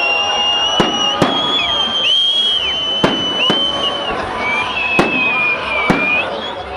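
Fireworks display: about six sharp bangs of bursting shells, with high whistling tones running underneath.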